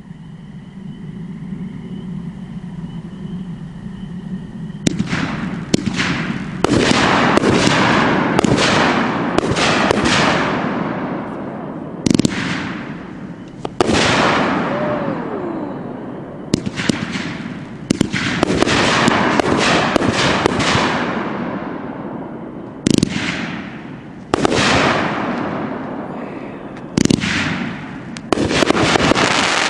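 A 25-shot, 500-gram fan cake firing: a rapid run of sharp shots and bursts, each trailing off in a crackling fizz. The shots begin about five seconds in and carry on in quick groups with short gaps until the end.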